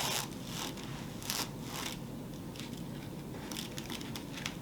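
Intermittent rustling and crinkling, with a few light clicks, from a Christmas wreath and its materials being handled during a repair.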